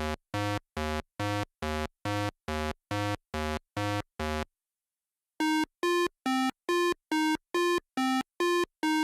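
A rapid train of synthesized electronic beeps, about two and a half a second, on a low pitch; they stop about four and a half seconds in. After a second's pause a louder, higher train of beeps starts, alternating between two pitches.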